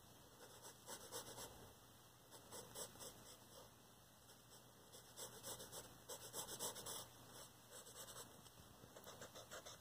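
Pencil sketching on paper: faint, quick scratchy strokes in irregular bursts, with short pauses between them.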